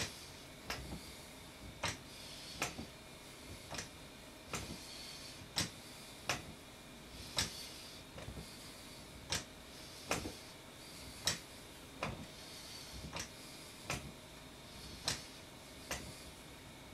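Exercise stepper clicking and knocking with each step in a steady rhythm, a little more than one stroke a second.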